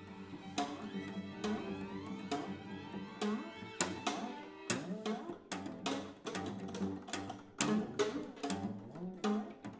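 String quartet playing contemporary music: bowed notes and sliding glissandi, cut through by sharp, percussive string attacks. The attacks start about a second apart and come several a second from about halfway through.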